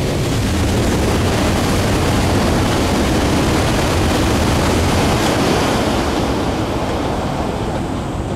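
H5 series Shinkansen passing at high speed: a loud, steady rushing noise that eases slightly near the end.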